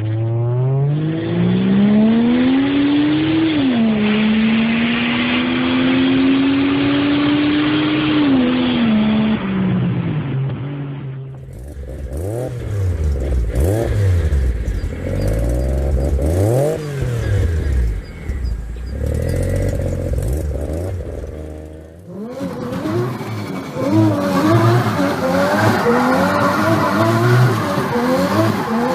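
Mazda Eunos Cosmo's 20B three-rotor turbo rotary engine accelerating hard, with one gear change about three seconds in, pulling again and then easing off. After a cut it is revved up and down several times, and near the end it runs in quick, choppy rises and falls of revs.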